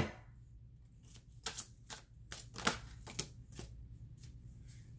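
Tarot cards being handled: a sharp knock at the start, then a string of about seven short, crisp card snaps and taps over roughly two seconds.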